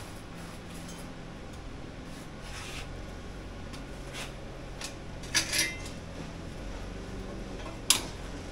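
Scattered light metal clinks and knocks from a stainless steel exhaust pipe being handled and turned on a welding fixture, over a steady low hum. The sharpest knock comes near the end.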